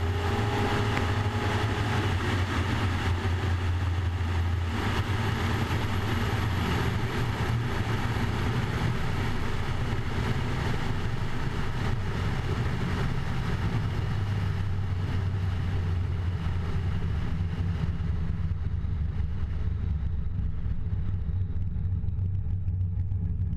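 Car engine running with a steady, deep low rumble, its higher-pitched hiss dying away over the last few seconds.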